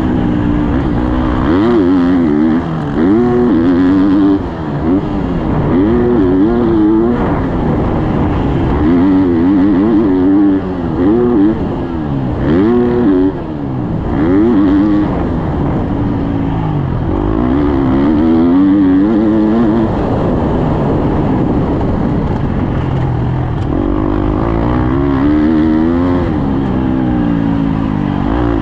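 Husqvarna motocross bike engine revving hard and easing off again and again, its pitch repeatedly climbing and dropping as the rider works the throttle and gears around the track, with a few brief throttle chops. Heard on board from the rider's helmet camera.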